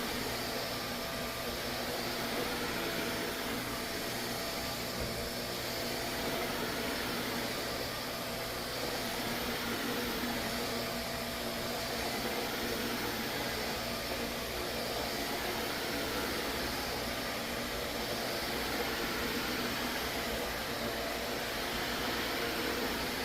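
Vacuum cleaner running steadily, a constant rushing noise with a faint steady whine.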